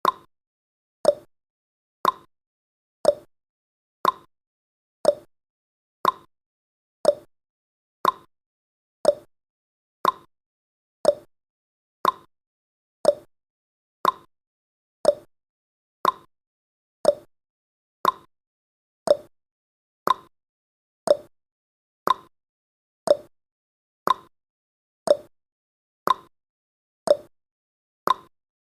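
Clock tick-tock sound effect ticking once a second to mark the seconds of a countdown, alternating between a higher and a lower tick.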